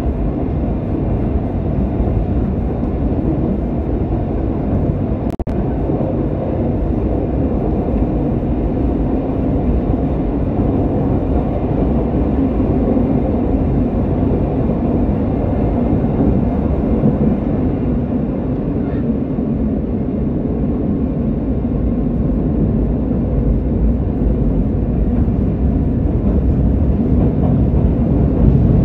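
Lisbon Metro train running through a tunnel, heard from inside the carriage: a steady low rumble, with one sharp click about five seconds in and the rumble growing a little louder near the end.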